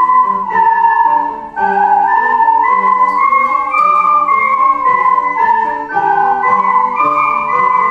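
Ocarina playing a smooth, flute-like melody over a lower accompaniment. The melody breaks off briefly about a second and a half in, then resumes.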